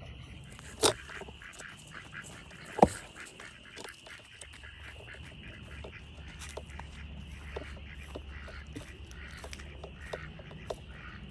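Domestic ducks quacking in short, repeated calls, with two louder sharp sounds about one and three seconds in and a steady high-pitched drone behind.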